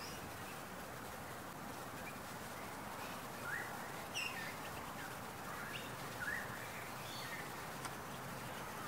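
Outdoor ambience by a lake: a steady rushing noise with several short, rising bird calls over it, the loudest about four and six seconds in.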